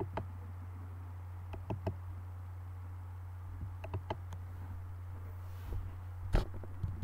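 Steady low electrical hum under a scattering of light clicks and knocks, with a louder knock a little after six seconds in.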